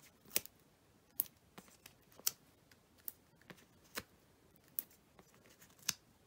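Dry clicks and crackles of hand-held cardstock, about ten, irregularly spaced, as small foam adhesive dimensionals are peeled from their sheet and pressed onto the back of an embossed paper panel.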